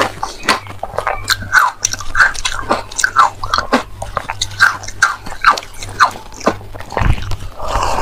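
Frozen matcha ice being bitten and chewed close to the microphone: a dense run of crisp crunches, several a second, from two eaters' tracks layered together, with a heavier, deeper crunch about seven seconds in.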